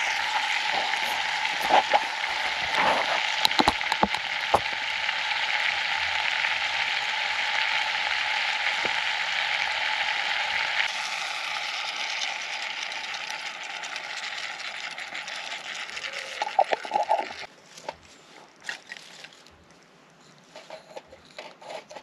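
Sliced potatoes frying in oil in a small camping pot over a Vargo Hexagon wood stove, making a steady sizzle with a few sharp clicks from the pan early on. The sizzle weakens after more food is tipped into the pot and cuts off suddenly about three quarters of the way through, leaving only a few light clicks.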